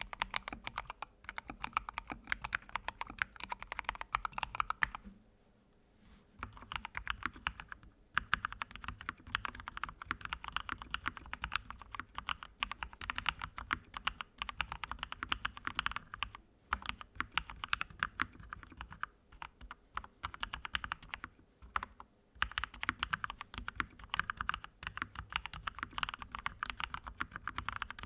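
Fast typing on a computer keyboard: dense runs of key clicks broken by short pauses. About five seconds in, the typing stops for about a second and then starts again on a different keyboard.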